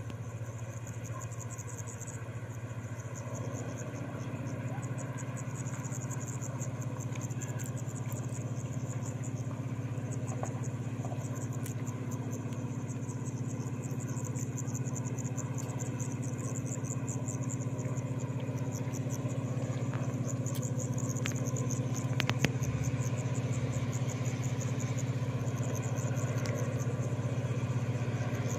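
Railway locomotive running with a steady low hum that grows slowly louder, with a high, rapidly pulsing chirp over it and a single sharp click about 22 seconds in.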